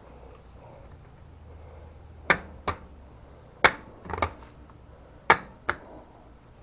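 Sharp metallic clicks from tools or bike parts being handled, in three pairs about a second and a half apart.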